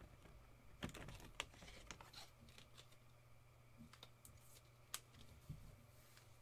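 Faint, scattered clicks and rustles of trading cards in clear plastic sleeves being handled.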